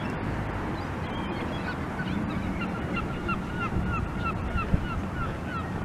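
A gull calling a quick series of short, repeated notes, about three or four a second, starting about a second and a half in, over a steady low rumble of wind and outdoor noise.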